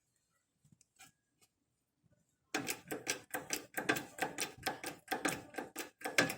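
Fast run of sharp metallic taps, about four a second, starting about two and a half seconds in, as a new rear wheel bearing is worked down onto its seat on the axle.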